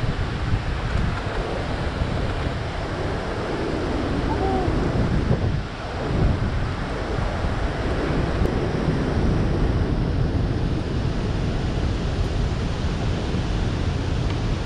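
Steady rush of water released through a dam's open flood gates, with wind buffeting the camera microphone.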